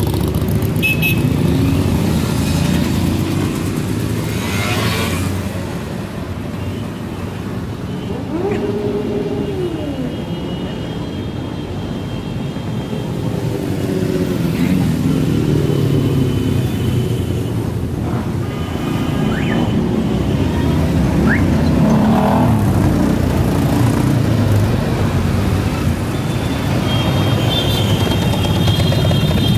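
A stream of motorcycles, scooters and cars passing one after another at low speed, engines running and revving up and down as each goes by.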